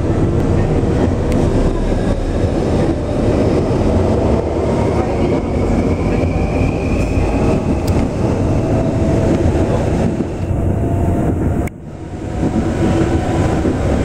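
Electric metro train heard from inside a moving carriage: steady running rumble and rail noise, with a faint rising whine for a few seconds as it gathers speed away from a station. The sound drops sharply for a moment near the end, then comes back.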